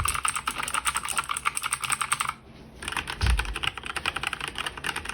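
Rapid typing on a mechanical keyboard with clicky blue switches, a dense run of sharp key clicks with a brief pause about halfway. It is really loud.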